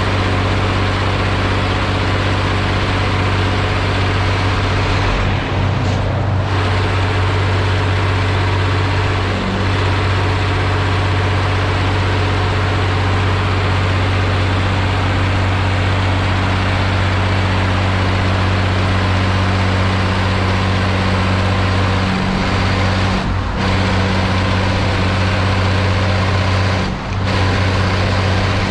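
Ursus 1201 tractor's diesel engine running steadily under load, a deep continuous drone with a few brief dips.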